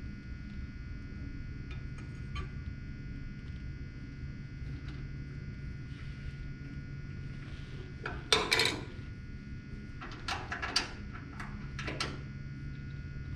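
A few sharp metallic knocks and clanks from handling and locking the tool rest of a Dayton 4TJ97 disc sander as it is set square, the loudest cluster a little past the middle, over a steady background hum.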